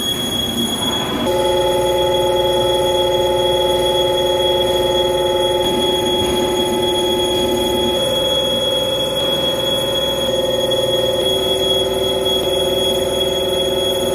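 CNC boring mill's milling cutter cutting the steel hub face of a large wheel, setting up a steady multi-tone squeal that starts about a second in and shifts pitch slightly a few times as the cutter moves round the circular path. A continuous high-pitched beep from the machine sounds throughout.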